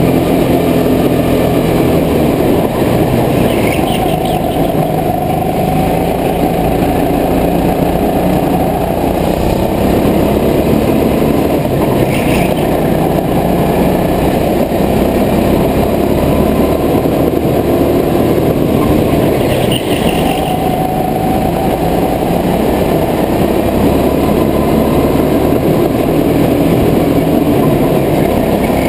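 Go-kart engine running steadily at speed through a lap, with brief higher-pitched sounds recurring about every eight seconds.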